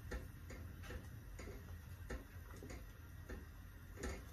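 Wooden spoon stirring pasta in a stainless steel pot, knocking and scraping against the pot in light clicks about two to three times a second.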